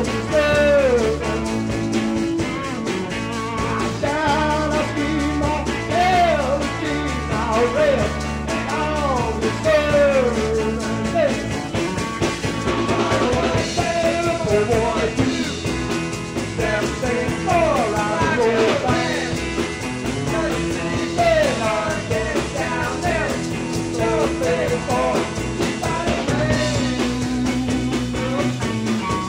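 Rock band playing live: electric guitars, bass and drums, with singing over a repeating bass line.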